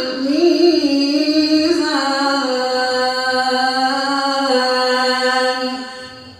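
A man's melodic Quran recitation (tajweed): the last word of a verse drawn out as one long note that wavers in pitch at first, is then held steady, and fades out near the end.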